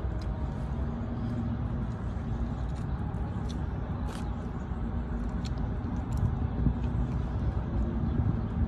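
Steady low rumble of nearby road traffic, with a few faint clicks of plastic cutlery against a plastic takeout container as a salad is eaten.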